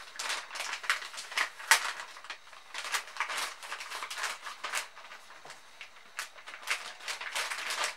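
Crinkling and rustling of a field ration's flameless heater pouch being folded shut and handled. The sound is a string of irregular crackles.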